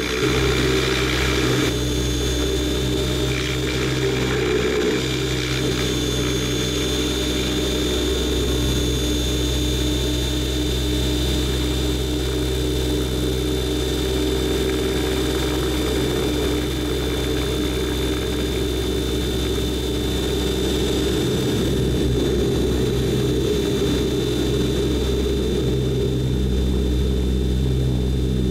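Aircraft engine running steadily in flight, heard from on board: a constant low drone with a thin, steady high whine above it.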